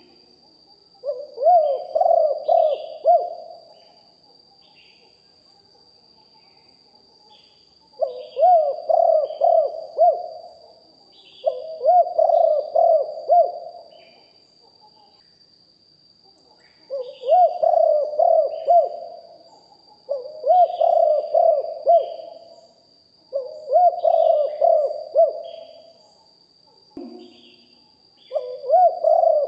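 Spotted dove cooing: seven phrases of several low, gliding coos, each about two seconds long, spaced a few seconds apart. This is the male's decoy call used to draw in wild doves.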